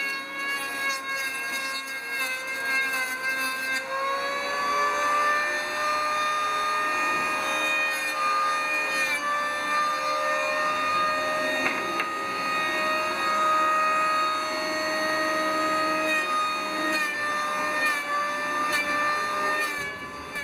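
Handheld electric power tool running with a steady motor whine as it cuts down the edges of wooden ship's frames to fair them. The pitch steps up about four seconds in and wavers a little after that.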